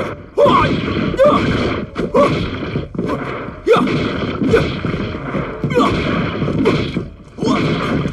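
A man's sharp kung fu shouts, each with a punchy hit or whoosh sound effect, about once a second as he throws a run of strikes. Each shout drops in pitch.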